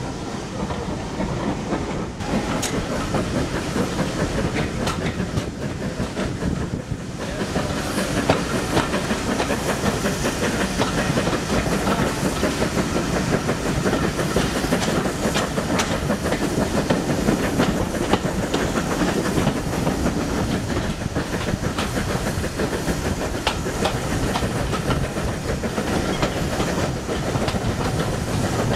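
Steam-hauled heritage train heard from an open carriage window as it runs: steady wheel clatter over rail joints with a hiss of steam from the locomotive ahead, getting louder about seven seconds in.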